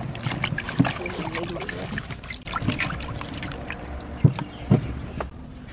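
Hands swishing and rubbing cut vegetables in water in a stainless steel bowl: irregular splashing and sloshing, with small clicks and a few louder thuds.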